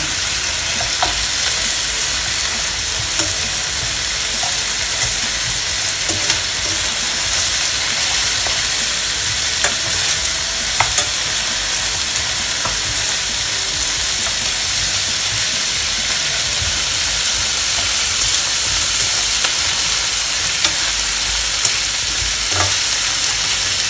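Pork hock pieces sizzling steadily in hot oil in a nonstick frying pan with onion and ginger, being seared to golden brown. Metal tongs click and scrape against the pan a few times as the pieces are turned.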